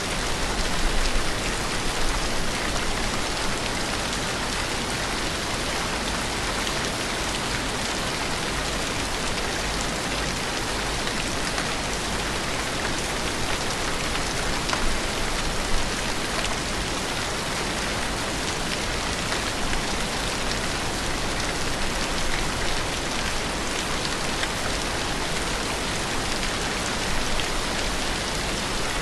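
Steady rain falling, an even, dense hiss with a few slightly louder moments.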